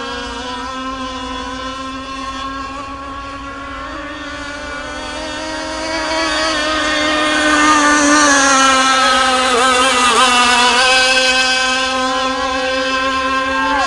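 Gasoline-engined radio-controlled racing boat running flat out: a high, steady engine whine that grows louder about six seconds in and drops in pitch as the boat passes, around ten seconds in.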